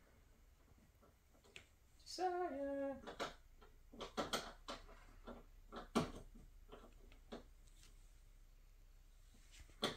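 A short hummed two-note vocal sound about two seconds in, the held tone stepping down in pitch, followed by scattered light knocks and taps on hard plastic.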